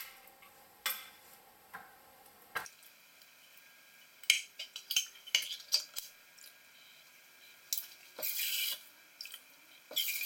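Condensed cream of poblano soup being emptied from a metal can into a ceramic slow-cooker crock: scattered clinks and knocks of the can against the crock, with a short stretch of scraping near the end.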